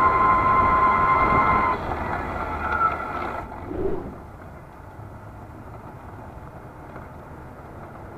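Electric drive motor of a S12X Vita Monster mobility scooter whining steadily as it rolls along. The whine eases after about two seconds and stops at about three and a half seconds as the scooter halts. Just after it stops, there is one short low call.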